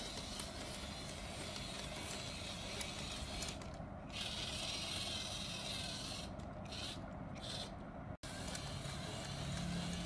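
Battery-powered wooden walking dinosaur toy running: its small geared motor whirring steadily as the wooden legs and linkages rattle, the whir dropping away briefly a few times as the remote button is released and pressed again.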